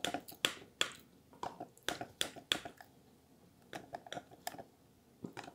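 Table knife cutting through baked eggplant parmigiana in a glass baking dish: an irregular run of short, sharp clicks and ticks as the blade works through the crusted cheese and meets the glass, with soft squishing of sauce and cheese.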